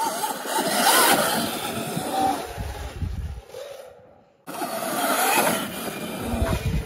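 Dirt bike riding on a dirt jump trail: tyres on dirt and wind rushing over the microphone, with a wavering motor whine. The sound cuts off at about three and a half seconds, is near-silent for about a second, then a similar riding clip begins.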